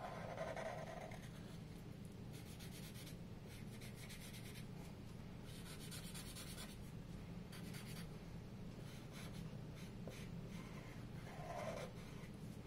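Black Sharpie marker scratching faintly on paper in repeated short strokes as it fills in a solid black area.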